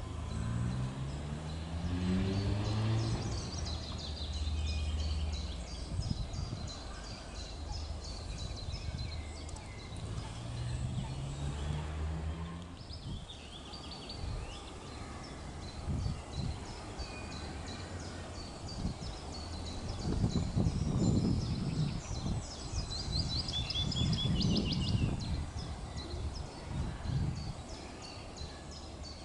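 Tits chirping rapidly and repeatedly in high, thin notes, over a low rumble that rises in pitch twice, and some low thumps in the second half.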